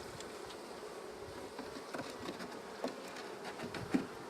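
Honeybees buzzing steadily around an open hive, with a few light knocks as the wooden frames are handled, about two, three and four seconds in.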